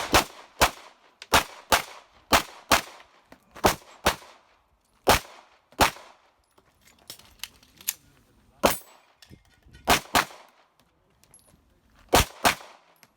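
Handgun shots fired in quick pairs, about fifteen in all, each a sharp crack with a short ringing echo. The pairs come a second or so apart, with a longer pause of about three seconds midway: a shooter engaging targets in a timed IDPA course of fire.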